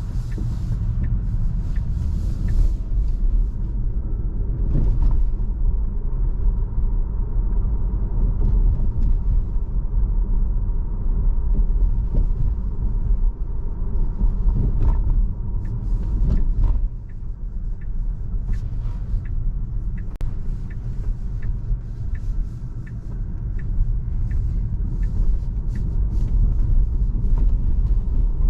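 Steady low road and tyre rumble of a Tesla driving, with a light regular tick about twice a second.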